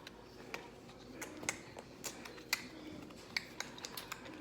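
Playing cards being handled and laid down: a scatter of light, irregular clicks and taps.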